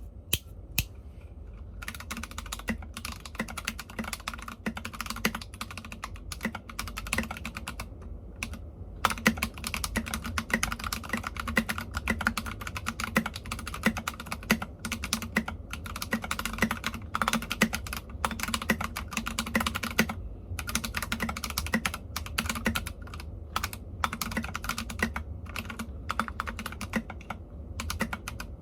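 Mechanical keyboard with unlubricated KTT Matcha switches being typed on in fast, continuous runs of key clicks. A few separate keystrokes come first, then steady typing, with short pauses about a third and two thirds of the way through.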